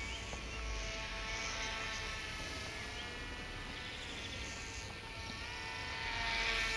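Twin small electric motors and propellers of a Silverlit X-Twin Turbo-Fury RC plane buzzing in flight, a steady whine. Near the end it grows louder and its pitch slides down as the plane passes close.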